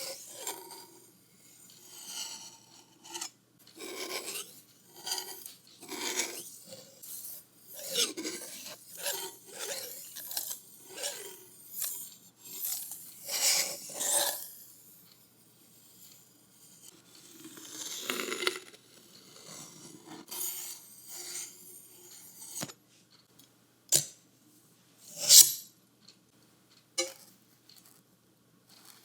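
Painting tools scraping and rubbing through paint on a wooden board: a run of separate strokes, each a second or less. Near the end come a sharp click and one louder stroke, then it goes quiet.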